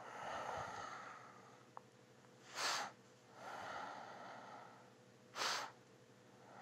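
A person breathing close to the microphone: two short, sharp breaths about two and a half and five and a half seconds in, with longer, softer breaths between them.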